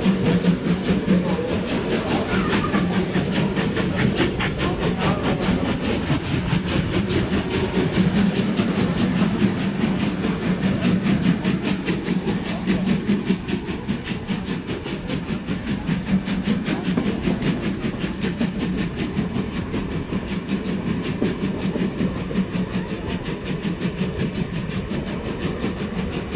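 Steam-hauled passenger train running, heard from an open carriage window: wheel and rail noise with fast, even pulsing over a steady low drone. The train is hauled by class 01 express steam locomotive 01 150.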